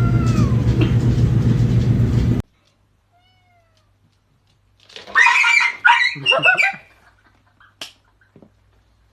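Cats meowing. Gliding meows over a steady low hum that stops abruptly about two and a half seconds in, then a faint short mew and a loud run of yowling meows about five to seven seconds in, followed by a couple of sharp clicks.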